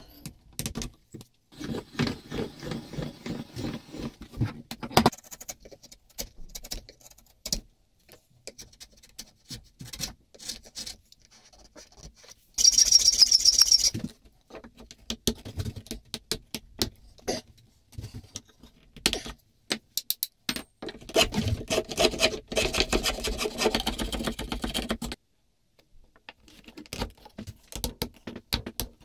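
A steel chisel paring and scraping beech wood in bursts of short strokes, with scattered clicks and taps of tools on the workpiece and bench. One brief, louder hissing stroke comes near the middle.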